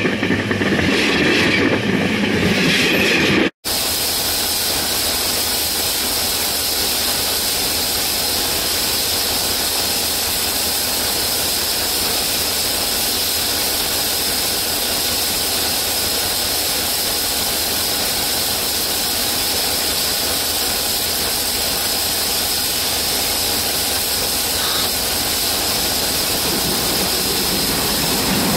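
Steady hiss of compressed air leaking from a New England Central (Rail America) diesel locomotive, over a faint low hum from the locomotive. It is preceded by louder train noise that cuts off suddenly about three and a half seconds in.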